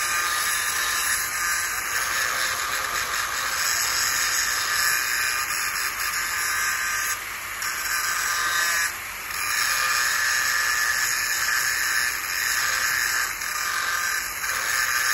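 Angle grinder grinding steel, a steady high-pitched grinding noise, easing off briefly about nine seconds in.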